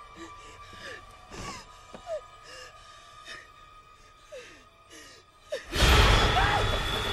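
A frightened woman's quick, shaky gasping breaths over a low, tense music drone. About six seconds in, a sudden loud crash-like burst cuts in and stays loud.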